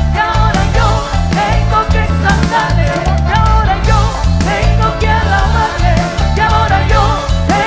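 Worship band playing a song live: a bass line and drum kit keep a steady beat under a wavering melody line with singing.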